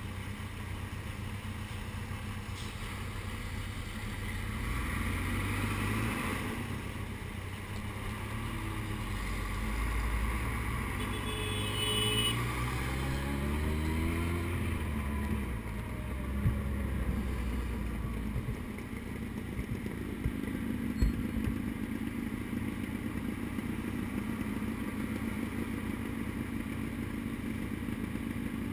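Suzuki Hayabusa's inline-four engine pulling away, its pitch rising for several seconds in the middle, then dropping back to a low, steady idle with the bike stopped in traffic. Two short sharp clicks come in the quieter part.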